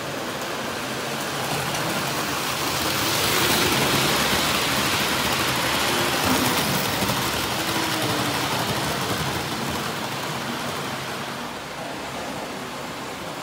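Model electric train running along the layout's track with a steady rattling whirr. It swells as the train approaches and passes close by, then fades.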